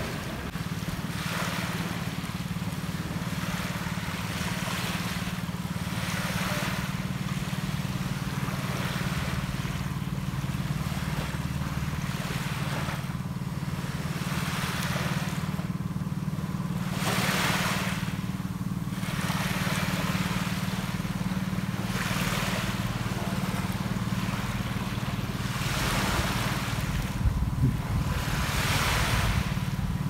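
Small waves washing onto a sandy beach, one wash every two to four seconds, over a steady low drone.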